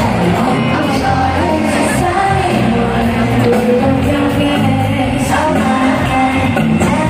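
Live pop song with a female lead vocal over a full band, coming through the arena's PA and echoing in the large hall.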